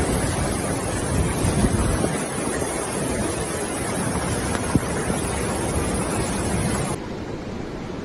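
Fast, muddy floodwater rushing through a street in a steady, dense rush, with wind noise on the microphone. Near the end it becomes slightly quieter and duller.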